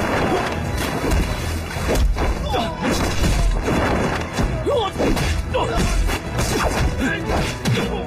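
Film fight-scene soundtrack: action music with punch and body-impact sound effects, several heavy thuds through it.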